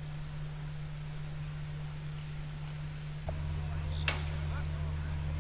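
Insects, crickets or cicadas, chirping steadily in a high, rapidly pulsing trill over a constant low hum, with one sharp click about four seconds in.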